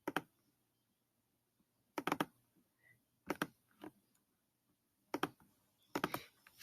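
Computer keyboard and mouse clicks, about six short clusters a second or so apart, some of them double clicks, while copying and pasting on a computer.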